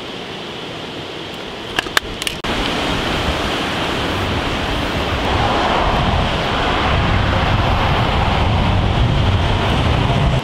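Steady rushing of river water, with a few sharp clicks about two seconds in; about halfway through the third second it abruptly gets louder, and a low rumble builds under it.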